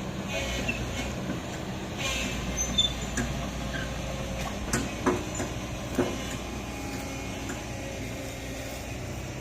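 Excavator engine running steadily, with squeaks and a few sharp metallic clanks between about two and six seconds in.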